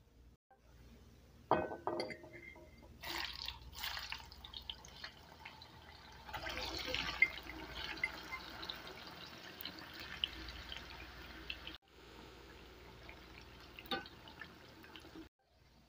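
Zucchini sticks sizzling and crackling as they deep-fry in hot oil in a frying pan. There are sharp bursts as more pieces are slid into the oil, then a steady dense crackle.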